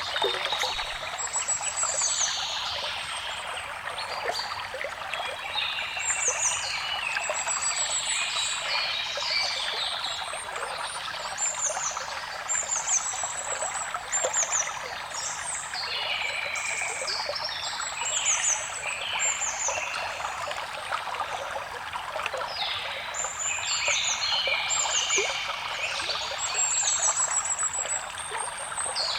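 Water trickling in a stream, with several forest songbirds singing over it throughout: overlapping phrases and rapid high trills.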